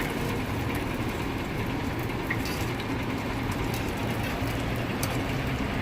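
Steady street-stall background noise: a low rumble under an even hiss, with a few faint clicks.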